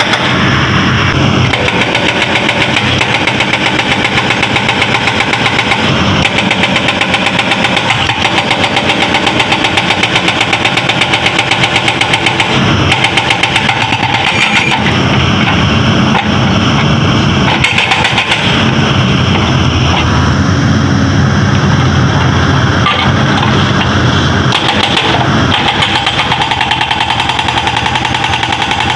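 Hydraulic rock breaker on a Caterpillar excavator hammering into stone, a rapid, steady pounding over the running diesel engine, with a few brief pauses.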